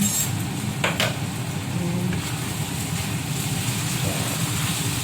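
Vegetable filling simmering and sizzling in a pan with a steady low rush, and a utensil knocking against the pan twice, near the start and about a second in.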